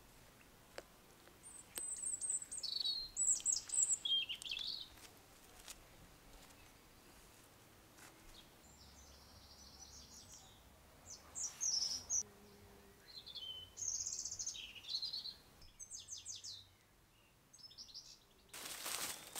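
Small songbirds singing in short bursts of high, quick chirping phrases, several times over a quiet background. Near the end a broad rustling noise comes in.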